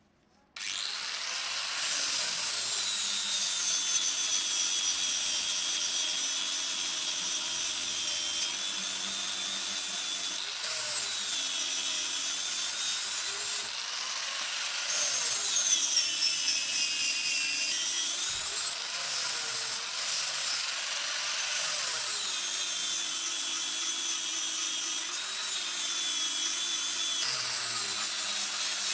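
Electric grinder starting about half a second in and running, with a whine that dips in pitch and recovers several times as the steel is pressed against it.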